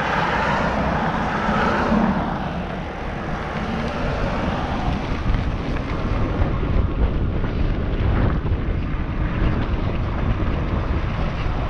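Wind buffeting the microphone of a camera riding on a moving e-bike, a steady low rumbling rush.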